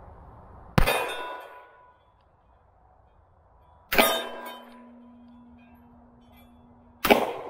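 Three shots from a Taurus Judge Public Defender Poly revolver firing .45 Long Colt, about three seconds apart. After each one a steel plate target rings on with a lingering metallic tone.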